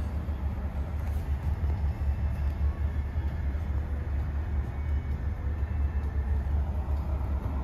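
Steady low rumble of a Chevrolet Silverado 1500 pickup's engine idling, heard inside the cab.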